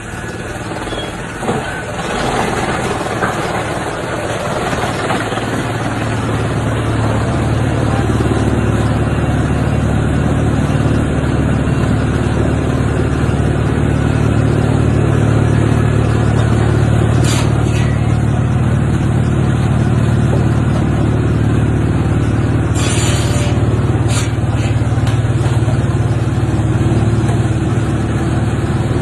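Wood chipper machine running, a loud steady mechanical drone that builds over the first several seconds and then holds even, with a few short sharp clacks about two-thirds of the way through.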